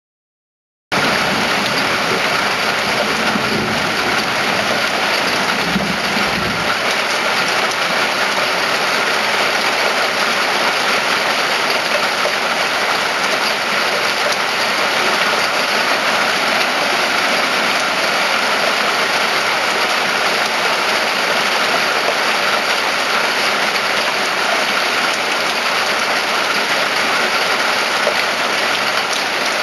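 Steady rain falling, an even hiss that starts abruptly about a second in.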